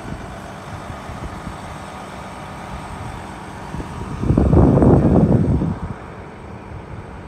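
Steady rumble and hiss of jet airliner and ground-vehicle noise on an airport apron as a jet is pushed back from the gate. About four seconds in, a louder rush swells for about a second and a half, then settles back.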